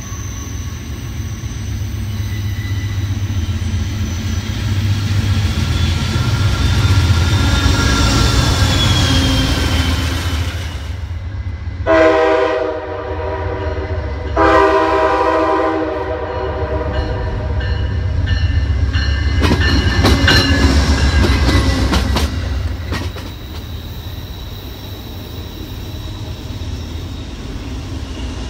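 Trains running on the line with a steady low rumble, a long wheel squeal gliding up and down in the first half, then a locomotive horn sounding two chord blasts midway, the second longer. A few seconds later come quick clicks of wheels over rail joints.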